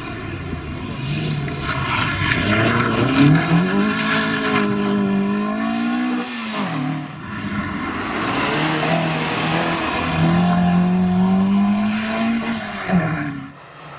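Peugeot 205 GTI rally car's four-cylinder engine revving hard under acceleration, rising in pitch and falling back twice with gear changes or lifts off the throttle. The sound drops away briefly near the end.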